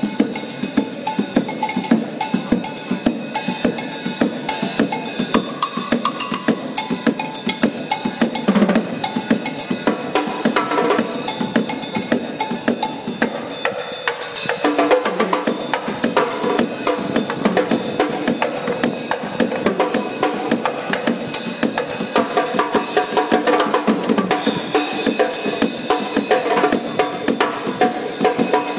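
Drum kit played in a fast, continuous beat with dense, closely spaced strikes throughout.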